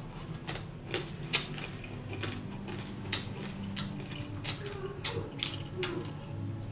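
A person eating with his mouth close to the microphone: irregular sharp smacks and crunches as he chews, about ten of them, over a steady low hum.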